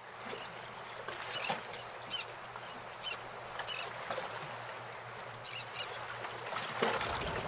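Birds calling in short, repeated cries over a steady rush of wind.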